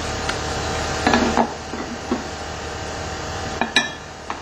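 Glass shelf pane knocking and clattering as it is handled and set down across blocks on a bench: a cluster of clatter about a second in, then a sharp double knock near the end. A steady hum runs underneath.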